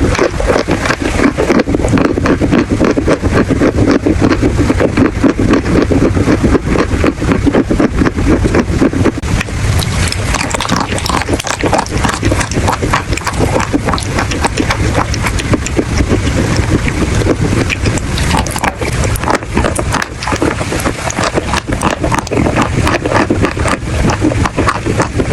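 Chalk being bitten and chewed close to the microphone: a dense, continuous run of crisp crunches and crackles, fuller and heavier for the first nine seconds or so.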